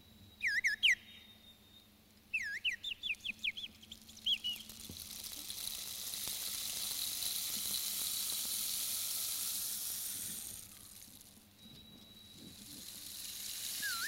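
Bird-call whistle blown in short warbling chirps, a quick group and then a longer run of about eight. Then a long rainstick pours out an even rustling hiss of falling pellets that swells, holds for about five seconds and fades, and starts to swell again near the end as the stick is tipped back.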